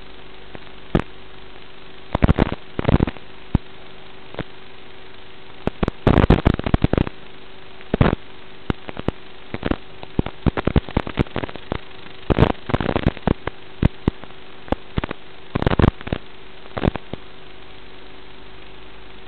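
Radio static from an analog FPV video link: a steady hiss with a low hum, broken by loud crackling bursts in clusters throughout. The crackles are typical of the 5.8 GHz video signal breaking up as the quad flies.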